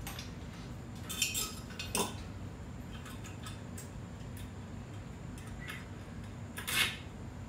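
A few light clinks and clicks of a screwdriver and handle hardware against a glass carafe as its handle is screwed on, with the clearest ones about a second in, at two seconds and near the end.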